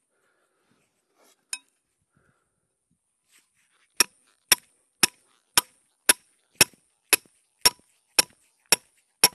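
Hammer blows driving a trap stake into the ground with a sharp metallic clink: a single strike, then a steady run of about two blows a second that carries on past the end.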